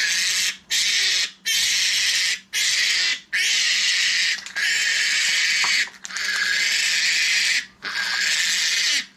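A week-old Meishan piglet screaming in about eight long, harsh squeals with brief gasps between them. It is in distress while held and handled for castration.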